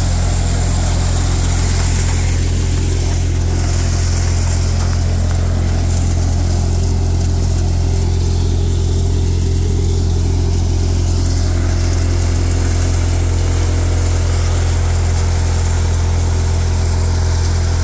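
Tractor-driven multicrop three-fan thresher running steadily while threshing chickpea plants: a loud, even low drone of the engine and machine with a hiss over it, unchanged throughout.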